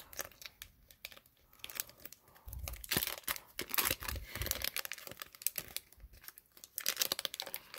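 Foil wrapper of a Pokémon trading-card booster pack crinkling and crackling in the hands as its stuck seal is worked at, in uneven bursts with a few dull bumps, busiest about three seconds in and again near the end.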